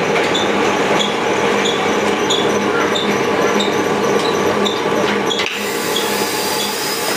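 Plastic blow-moulding machine running, a steady hum with a short squeak about one and a half times a second. About five and a half seconds in, a steady hiss of compressed air starts as the closed mould blows the plastic tube into a lota body.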